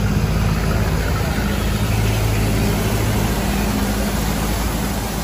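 A motor vehicle's engine idling with a steady low hum, over general street traffic noise.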